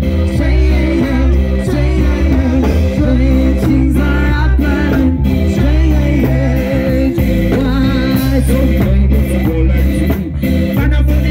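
Amplified live band music: keyboard, electric guitar and drum kit playing without a break, with a woman singing lead through a microphone.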